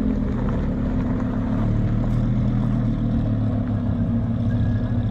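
A car engine running steadily at low revs, with a deep, rough, even note.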